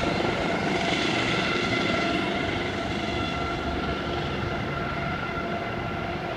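Aerospatiale helicopter flying away, its turbine whine and rotor noise steady and slowly fading.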